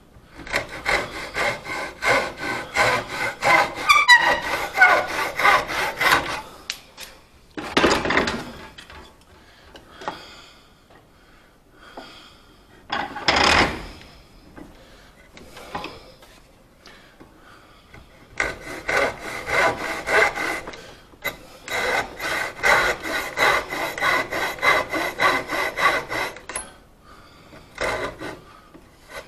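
Hand saw cutting into wood in runs of quick, even strokes, cutting down to the line for the step of a tenon. The sawing stops for about ten seconds in the middle, a gap broken by two short louder sounds, and then starts again.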